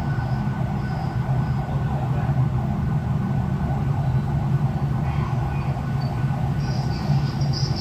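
Acoustic feedback howl through the Ezviz H3 3K camera's two-way talk speaker, fed back through the phone's microphone: a loud, steady low drone with a thin high tone held above it. A hiss comes in near the end.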